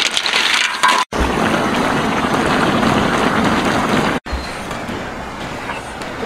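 A large wok of snails in their shells boiling and hissing over a wood fire, with the shells rattling as they are stirred at first. The sound breaks off sharply twice, and after the second break the bubbling is quieter and even.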